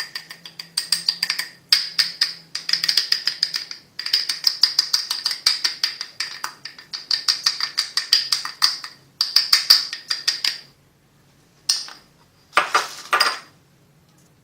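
Quick runs of light ringing taps, about eight a second, as starch is dusted over hardened ginger-lemon candy lozenges. The runs stop near the end, with a couple of brief louder knocks after them.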